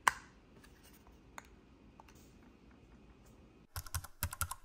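A single sharp plastic snap as the LiftMaster 811LMX remote's cover clicks shut over its code switches, then faint handling ticks. About four seconds in, a rapid run of computer-keyboard typing clicks begins.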